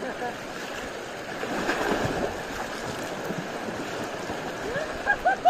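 River water running, swelling louder about two seconds in, with short calls of voices near the end.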